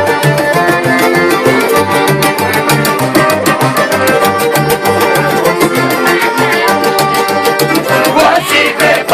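Live band music: a fast, rhythmic tune on accordion and guitar over an evenly pulsing bass line.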